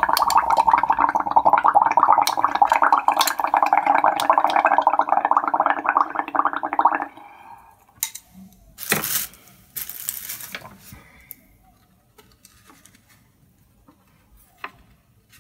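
Air blown through a plastic straw into a glass of paint-tinted water and dish soap: a loud, continuous bubbling that stops abruptly about seven seconds in. A couple of short rustling noises follow.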